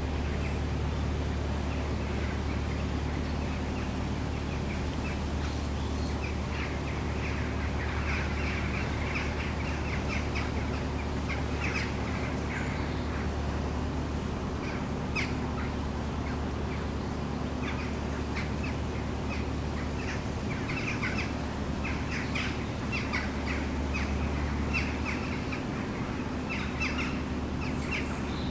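Narrowboat's diesel engine running steadily at cruising pace, a low even hum, with birds calling repeatedly over it from about seven seconds in.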